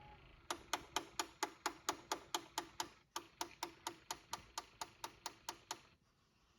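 Pioneer PL-L800 linear-tracking turntable making a repeated mechanical clicking: sharp, evenly spaced clicks at about four a second, with a brief break about three seconds in, stopping about a second before the end.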